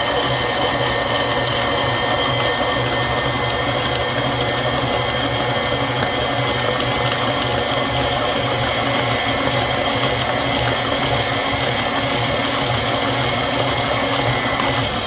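KitchenAid stand mixer running steadily at medium speed, its motor giving a steady whine as the flat beater turns through creamed butter, sugar and egg in a stainless steel bowl.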